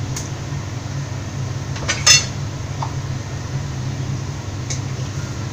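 Kitchen utensil sounds against a steel cooking pan as a curry is stirred with a wooden spatula: a few light knocks, the loudest a short ringing clink about two seconds in, over a steady low hum.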